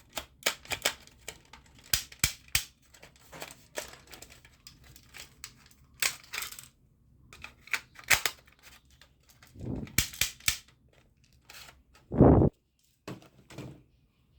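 Plastic toy army gun being handled: irregular sharp plastic clicks and clacks, with a louder short thud about twelve seconds in.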